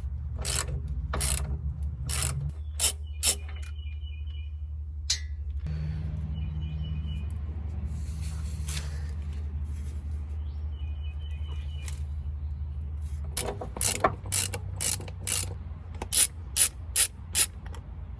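Socket ratchet clicking in short bursts of strokes as the 18 mm motor mount nuts are spun off, with a quicker run of strokes near the end, over a steady low hum.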